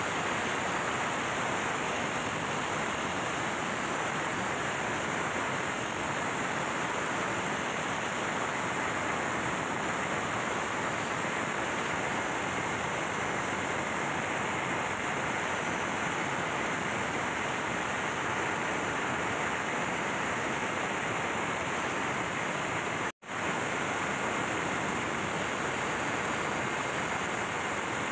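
Steady, loud running noise of a ship's MAN B&W auxiliary diesel generator engine filling the engine room, running during a performance test. The sound drops out for an instant near the end.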